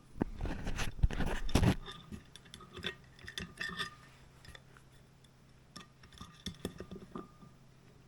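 Metal tools and parts clinking and knocking against each other during hand work on an electric scooter's stem: a close cluster of louder knocks in the first two seconds, then scattered lighter clicks.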